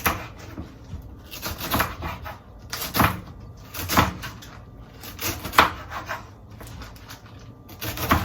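Knife cutting through collard green leaves and striking a cutting board, sharp chops at an uneven pace of about one a second.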